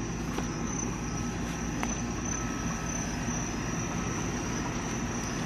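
Night-time outdoor ambience: a steady high-pitched chorus of night insects over a low, even rumble, with a couple of faint clicks.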